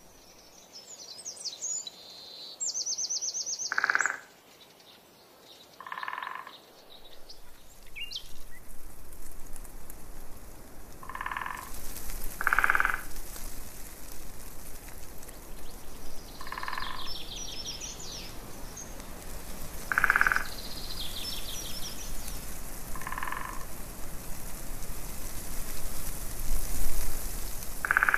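Short croaking calls repeated every two to four seconds, with a few high, fast bird trills in between.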